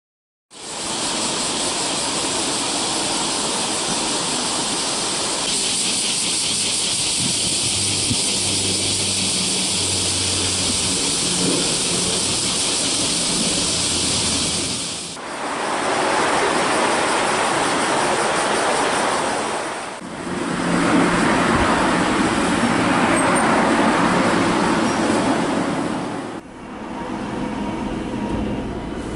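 Busy city street ambience with passing traffic under an elevated railway, in several clips spliced together with sudden changes. In the last few seconds, a Kita-Osaka Kyuko train running along its track.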